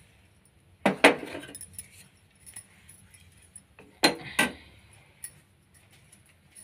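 Metal kitchenware clinking and rattling in two short clusters, one about a second in and one about four seconds in, each ringing briefly.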